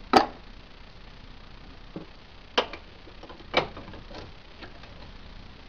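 A handful of separate sharp metal clicks and knocks, the loudest right at the start, as a steel rivet-setting tool is handled and fitted into the jaws of a bench vise.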